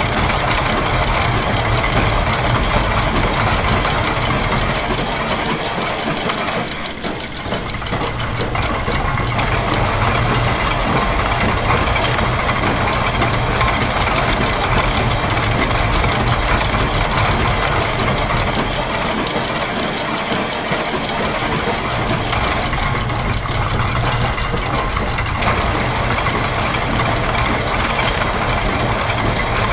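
Layered loop of factory machine sounds: a steady low mechanical hum under dense clicking of gears and ratchets. The texture thins twice into separate ticks before filling back in.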